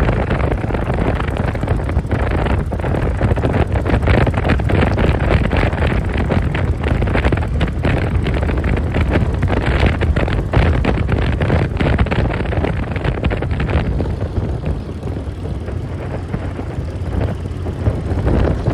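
Wind buffeting the microphone of a moving motorcycle at road speed, with the motorcycle running underneath. The rush eases a little about three-quarters of the way through.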